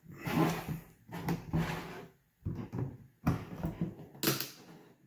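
Needle-nose pliers scraping and twisting at the plastic screen insert jammed in the filler neck of a plastic 5-gallon gas can. The plastic scrapes and knocks in a series of irregular bursts as the insert is wrenched loose.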